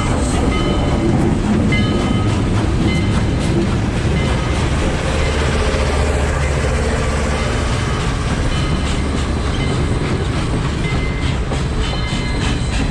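Steam excursion train's tender and maroon passenger coaches rolling close past on jointed track, steel wheels clicking and clattering over the rail joints above a steady heavy rumble.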